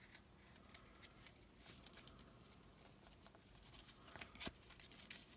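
Near silence: room tone, with a few faint clicks about four seconds in.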